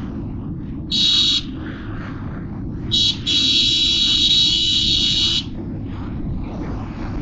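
A high-pitched vehicle horn honks briefly twice, then is held for about two seconds, over the steady rumble and wind noise of a motorcycle riding along a highway.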